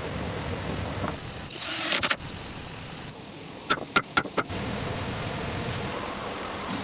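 Steady rush of flowing water, interrupted by a short swelling hiss and then four quick, sharp knocks.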